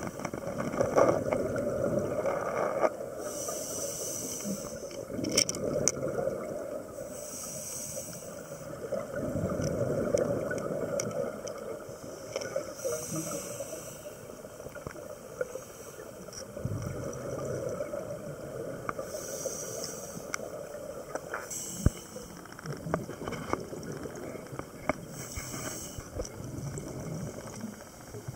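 Scuba diver breathing through a regulator underwater: a hiss with each inhaled breath, about five times, and bubbling from exhaled air between them. A few sharp clicks stand out.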